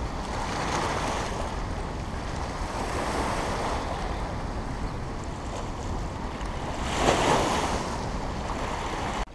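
Steady rush of turbulent water churning out of a dam spillway outlet, released at about 1,000 cubic feet per second. It swells louder for a moment about seven seconds in.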